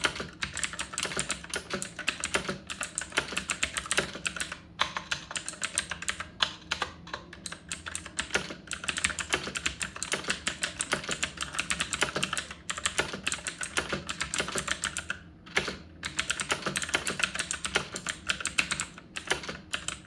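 Fast typing on a budget mechanical keyboard with BSUN clicky blue MX-clone switches: a dense, continuous run of sharp key clicks, broken by a few short pauses about 5, 12.5 and 15.5 seconds in.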